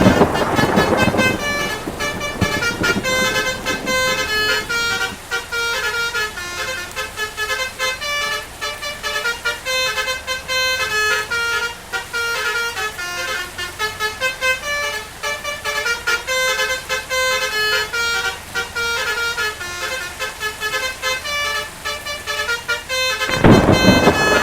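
A bus's basuri 'telolet' multi-tone air horn playing a tune of quick short notes at several pitches, over and over. A loud rushing noise sounds right at the start and again near the end.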